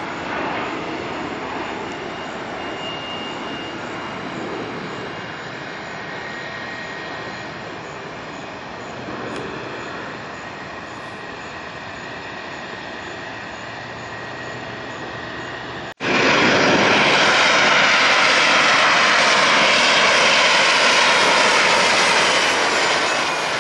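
Jet engines of a Bombardier CRJ regional jet taxiing: a steady hum with a faint high whine. About two-thirds of the way through, a sudden cut to the much louder, closer jet noise of an Embraer ERJ-145-family regional jet speeding along the runway, its engine whine wavering over the noise.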